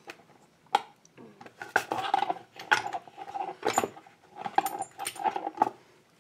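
Metal lock-cylinder parts clinking and knocking against each other and a hard surface, about eight sharp clinks with a brief metallic ring, as a half euro cylinder is taken apart with its key turned.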